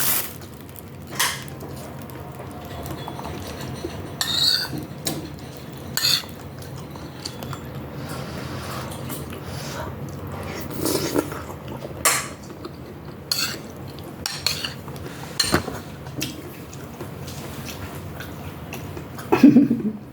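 Spoon and fork clinking and scraping against a dish during a meal, about a dozen sharp clinks spaced irregularly, with a couple of softer thuds.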